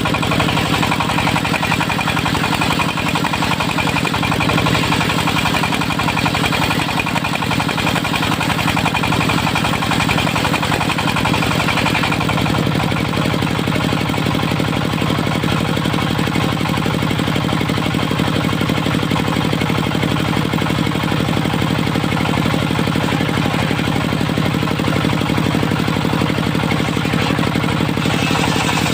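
Dongfeng diesel engine powering a homemade mobile circular sawmill, running steadily; its low tone shifts slightly about twelve seconds in.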